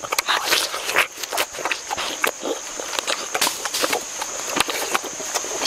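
Close-up mouth sounds of biting into and chewing watermelon: a run of irregular clicks and crackles.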